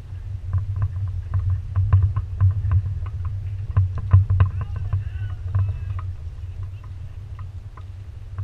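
Irregular clicks and knocks from the rigged sailing dinghy's fittings and rigging, several a second, over a steady low rumble of wind on the microphone.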